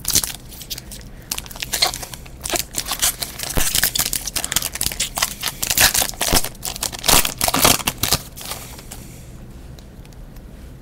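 Foil wrapper of a pack of football trading cards crinkling and tearing as it is opened, a dense run of sharp crackles that dies away about two seconds before the end.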